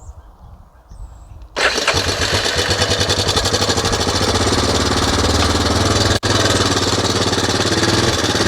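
A vehicle engine starts about a second and a half in and keeps running with a fast, even firing beat and a steady low hum. The sound drops out for an instant a little after six seconds.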